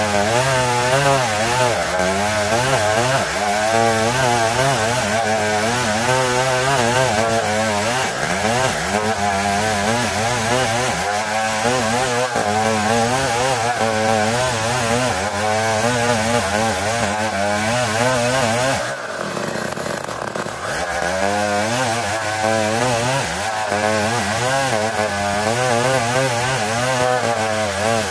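Chainsaw running under load, ripping lengthwise through dense ulin (Borneo ironwood) as the saw is pulled back along the cut. The engine note wavers as the saw bogs and recovers in the hard wood, and eases off briefly about two-thirds of the way through before picking back up.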